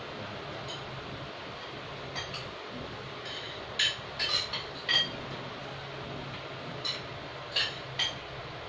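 Small hard metal parts or hand tools being handled, making a scattering of sharp clinks and clicks, several bunched together about four to five seconds in, over a low steady hum.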